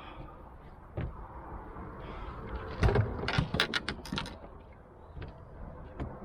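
Fishing reel being cranked with ratcheting, gear-like clicks and rattles, as the line is reeled in after the fish has come off: one knock about a second in, then a quick run of clicks and rattles about three to four seconds in, and a few single clicks near the end.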